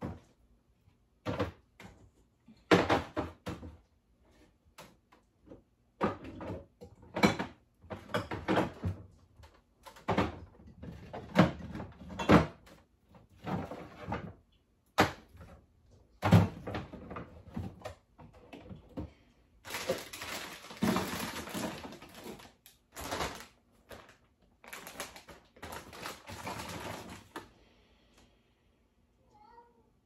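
A cat meowing insistently over and over, one loud call after another about every second or so, stopping near the end.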